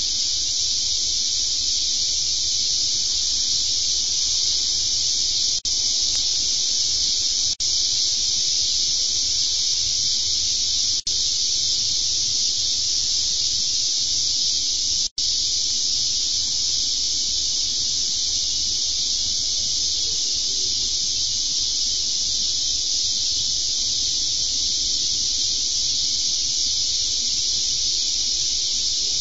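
A steady, even high-pitched hiss that does not change, cutting out for an instant four times.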